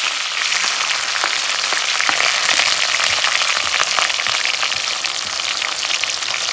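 Sliced onions frying in hot oil in a wok: a steady sizzle with many small crackles.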